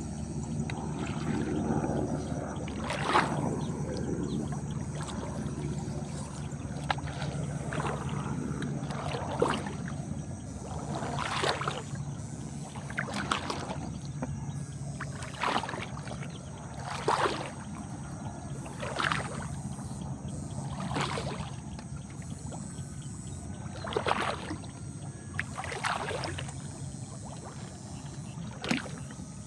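Water splashing in regular strokes, about one every two seconds, over a low steady hum.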